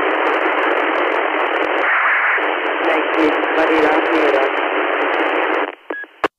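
UHF CB radio receiving a weak, noisy transmission through a repeater: steady hiss with a faint voice buried under it. It cuts off a little before the end, followed by a short beep and a click as the carrier drops.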